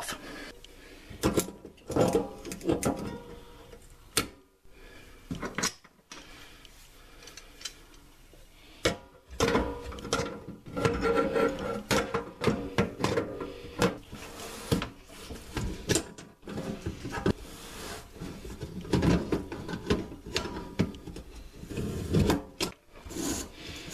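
Vise grips and large-jaw pliers working on an old metal kitchen sink basket strainer while its locknut ring is unscrewed: irregular metal clicks, clanks and scraping of tool jaws on the ring and threads.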